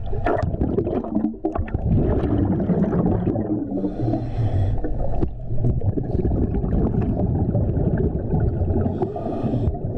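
Diver breathing underwater through a surface-supplied (hookah) air regulator: exhaled bubbles rumbling and gurgling, with a short hiss of inhaled air about four seconds in and again near the end.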